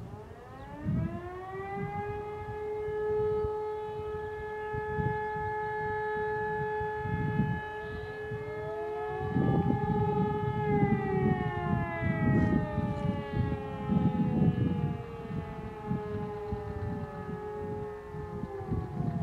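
E57 electromechanical sirens sounding one tone of the fire alarm signal. The siren winds up over about two seconds, holds a steady wail for about eight, then winds down slowly, while a second siren rises and falls out of step near the middle. Irregular low rumbling noise runs underneath.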